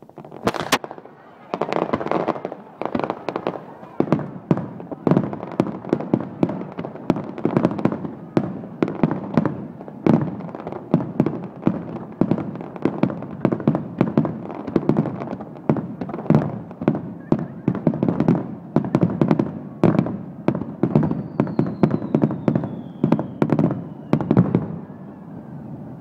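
Aerial fireworks bursting in rapid, overlapping succession: repeated booms and crackling reports with no pause. A single thin whistle falls slowly in pitch for a few seconds about 21 seconds in.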